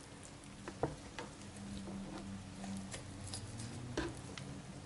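Faint scattered clicks and soft scrapes of a knife cutting through a raw chicken's leg joint and of hands pulling at the bird on a plastic cutting board, over a low steady hum.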